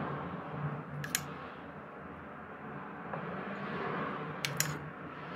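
A metal spoon clinking against a glass tumbler as thick porridge is spooned into it: one ringing clink about a second in and two quick ones near the end, over a steady low background hum.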